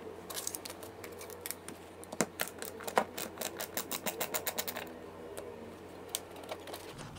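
Front depth-adjustment knob of an electric hand planer clicking through its detents as it is unscrewed: a quick, fairly regular run of small clicks, about five a second, that thins out about five seconds in.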